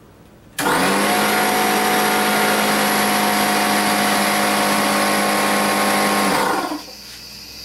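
Porter-Cable pancake air compressor switching on about half a second in and running loud and steady with an even mechanical hum, then cutting off about six seconds in and quickly running down.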